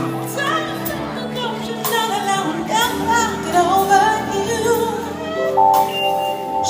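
Live band music with a woman singing wordless, fast-moving vocal runs that bend up and down in pitch over sustained accompaniment chords, ending on held higher notes.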